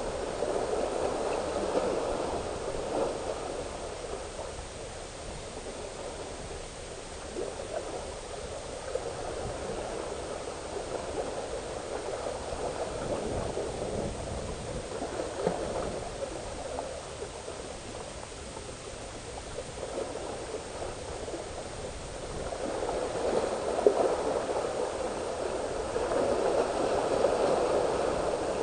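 Sea waves washing and splashing against breakwater rocks, swelling and fading in surges, loudest near the end.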